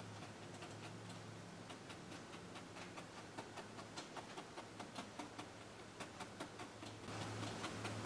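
Bristles of a wide flat paintbrush tapping and dabbing oil paint onto a stretched canvas: a run of quick, uneven taps, a few a second, over a steady low hum.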